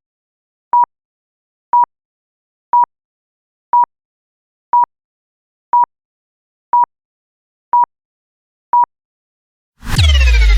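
A short, high electronic beep repeated once a second, nine times, over dead silence, like a countdown leader. Near the end a loud deep boom with falling tones cuts in, opening the electronic intro music.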